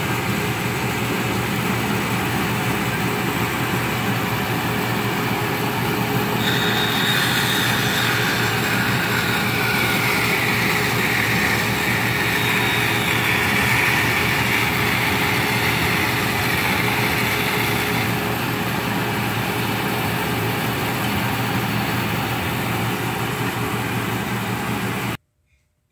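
Floor-standing band saw running steadily. From about six to eighteen seconds in, the blade cuts a curve through a pine block and a higher whine rises over the motor noise, then it goes back to free running. The sound cuts off suddenly near the end.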